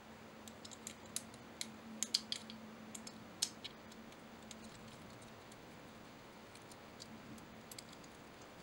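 Light clicks and ticks of small parts and screws being handled as an Area 419 Arca rail adapter is fitted onto an Atlas bipod. They come in a cluster over the first few seconds, thin out, then return briefly near the end.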